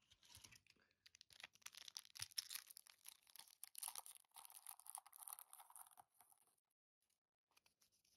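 Foil trading-card booster pack wrapper crinkling in the hands and being torn open: several seconds of soft crackling with a longer tearing stretch, stopping about two thirds of the way through.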